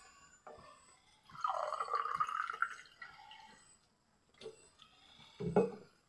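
Liquid poured into a glass for about a second and a half, starting just over a second in. A short dull knock near the end.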